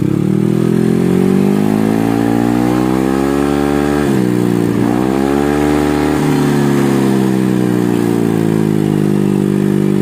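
Yamaha Aerox 155 scooter's single-cylinder engine revved hard through a rebuilt ROB1 aftermarket muffler, reworked for a deeper, bassier note. The revs climb over about four seconds, dip briefly and pick up again, then ease down and hold steady.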